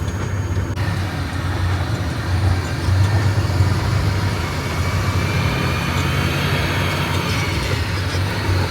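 Diesel engine of a concrete mixer truck running steadily under way, with a deep, even rumble and a faint whine that falls in pitch near the end. The truck is on its first drive with a freshly rebuilt transmission.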